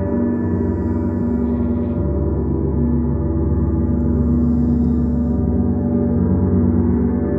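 Large planetary gong played without pause. It makes a steady, dense wash of many overlapping ringing tones, and no single strike stands out.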